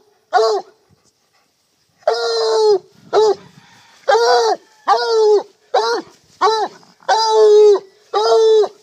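Young Black and Tan Coonhound barking at a raccoon held in a live trap: a run of about eight short, clear, even-pitched barks coming one after another, after a pause of about a second near the start.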